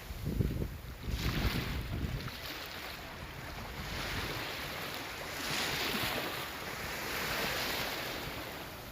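Sea waves washing in, the hiss swelling and fading every few seconds, with wind buffeting the microphone in the first couple of seconds.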